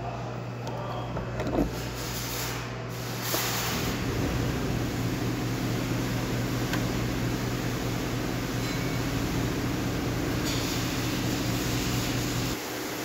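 Steady machine hum that grows louder about three and a half seconds in and drops back shortly before the end, with a few light clicks near the start.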